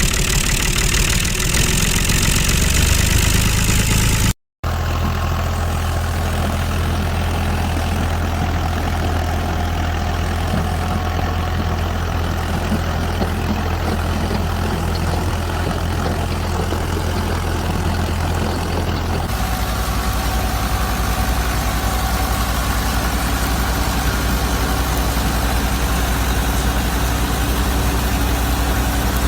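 An engine running steadily at idle with an even low hum. It drops out for an instant a few seconds in, then resumes, and its tone shifts slightly later on.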